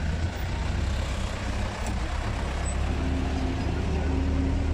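Engines of a slow vehicle convoy, an old 4x4 jeep and cars, running with a steady low rumble. A faint steady hum joins in over the second half.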